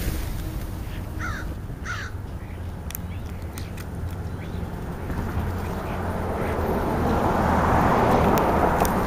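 American crow cawing twice, short and harsh, about a second and two seconds in. Later a rushing noise swells louder toward the end.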